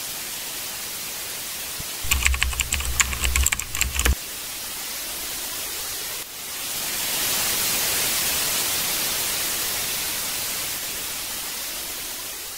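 TV static hiss, with a burst of rapid computer-keyboard typing clicks over a low hum from about two to four seconds in. The static dips briefly about six seconds in, then swells louder and slowly fades.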